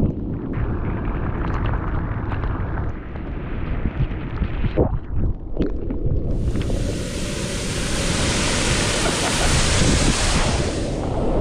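Wind buffeting an action-camera microphone during a bicycle ride, a steady low rumble. From about six seconds in a loud, even hiss joins it for about five seconds, then drops away.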